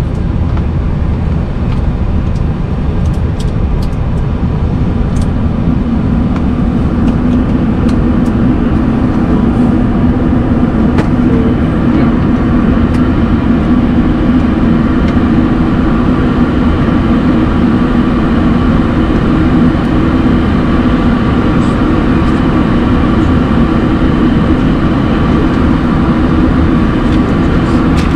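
Steady hum and air rush inside a Boeing 737-800 cockpit on the ground, with a low hum that grows a little stronger about six seconds in and a few faint clicks.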